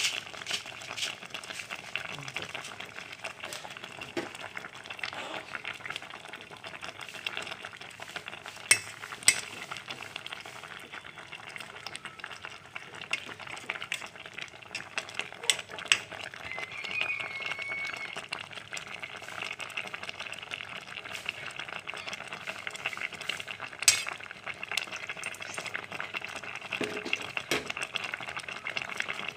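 Fish in coconut milk simmering in a stainless steel pot with a steady bubbling hiss, while a metal ladle stirs it and clinks sharply against the pot a few times.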